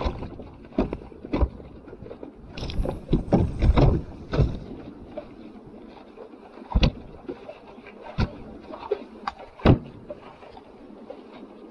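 Kayak under way by paddle: irregular knocks and splashes from the paddle and hull, with a cluster of knocks early on and single sharper ones later.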